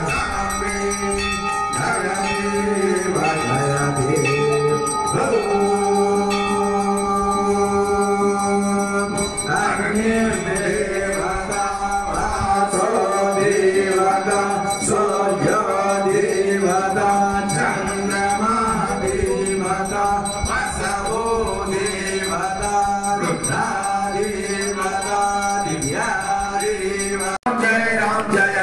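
Hindu devotional music: chant-like group singing over steady held tones, in the manner of an aarti hymn.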